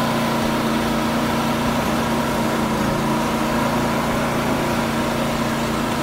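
An engine idling steadily with an even, unchanging hum.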